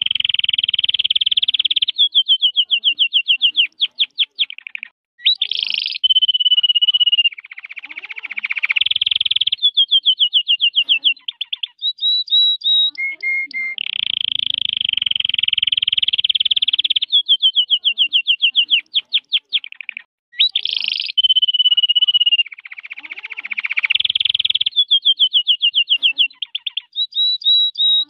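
Red-factor canary singing a long, unbroken song of rapid trills, rolls and sliding whistles, the same run of phrases repeating about every fourteen seconds.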